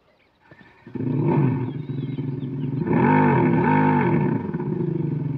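Revolt electric motorcycle's onboard speaker playing an artificial motorcycle engine sound. It starts about a second in, and its pitch rises and falls a few times like an engine being revved.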